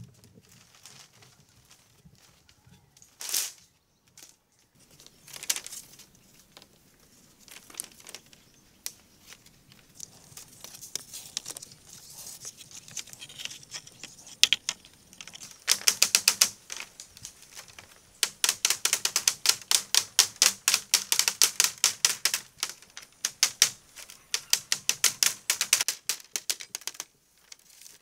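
Rapid runs of sharp clicking taps, several a second. A few scattered knocks come first, and the long dense runs start past the middle.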